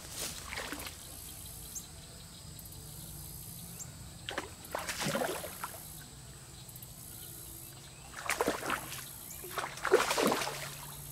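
A hooked gar splashing and thrashing at the surface close to the bank as it is reeled in, in irregular bursts about four, eight and ten seconds in.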